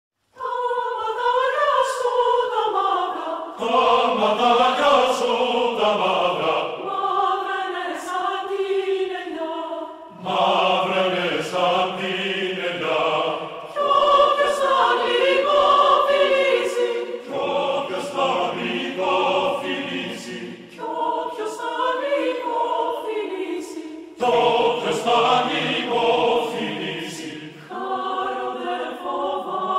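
Choir singing a cappella, a choral arrangement of an Asia Minor folk melody, in long phrases with brief breaths between them. Higher voices open alone, and lower voices join about four seconds in.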